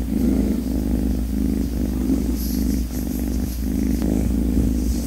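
A sleeping kitten purring steadily and rapidly while she is stroked and her paw is handled.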